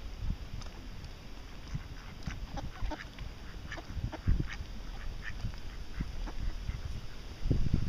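Mallard ducks quacking: many short calls in quick succession. A louder low rumble rises near the end.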